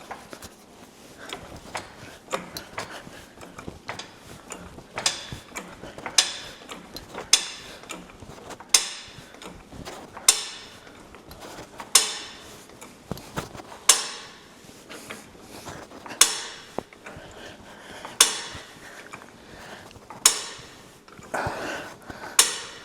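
Hand ratchet wrench clicking in repeated strokes, working a spark plug. The strokes come every second or two and space out slightly toward the end.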